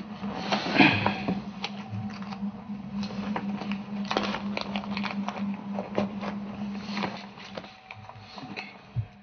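Paper banknotes rustling and crinkling as they are handled, a scatter of small irregular crackles over a steady low hum.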